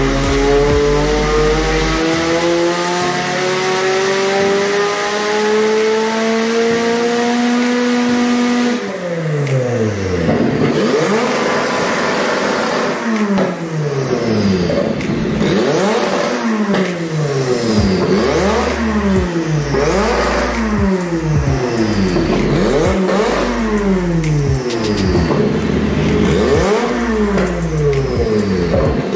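Turbocharged 1.6-litre four-cylinder engine of a first-generation Mazda MX5 on a chassis dyno, pulling under full load with its pitch climbing steadily for about nine seconds. It then gives way to repeated sharp throttle blips, about one every second and a half, each rising and falling quickly, with crackles from the exhaust as it spits flames.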